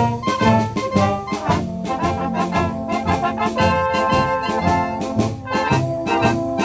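Traditional Bavarian village brass band playing a tune: trumpets, horns and tuba in sustained chords over a steady, evenly spaced beat.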